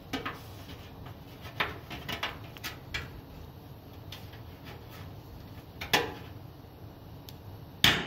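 Ball-peen hammer tapping a half-bucked aircraft rivet outward through the aluminium fuselage skin, to pull a dented crater around the rivet back out. Light clicks of handling first, then a sharper metallic knock about six seconds in and a louder one just before the end.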